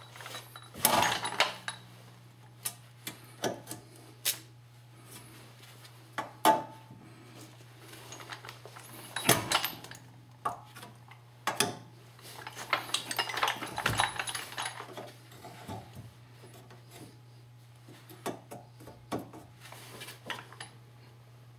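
Hooked seal puller scraping, clicking and knocking against a steel axle seal and the axle housing as it is hooked in and levered, in irregular bursts with short scrapes. The seal is holding fast: it is in very tight, likely rusted in.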